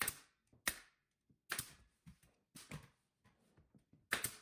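Pneumatic nail gun driving nails through baseboard trim into a cabinet base: a series of about six sharp shots, spaced under a second apart, with near silence between.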